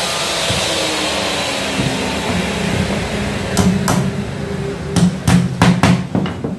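Hand router motor running and winding down, then a small hammer tapping on a particle-board strip: two taps, then a quicker run of about six.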